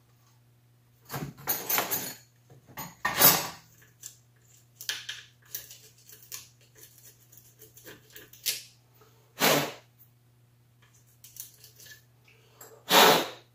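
Metal engine parts and hand tools clinking and clattering on a workbench in separate short bursts, with the loudest knocks a little after three seconds and near the end.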